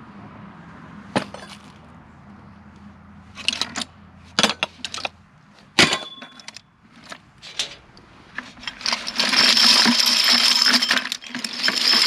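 Loose scrap metal pieces clinking and knocking together as they are picked through: several separate sharp clinks, one with a brief metallic ring, then a long rattling clatter near the end.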